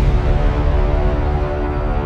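Intro music: sustained held chords over a heavy low bass.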